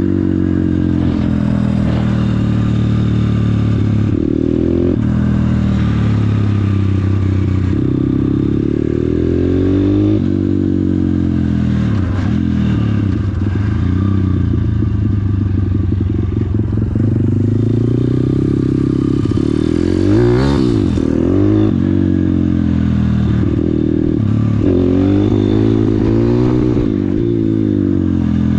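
MRF 160RC-Z pit bike's single-cylinder four-stroke engine pulling under way, the revs climbing and dropping again and again as it is shifted through the gears, with a quick drop and rise in revs about twenty seconds in.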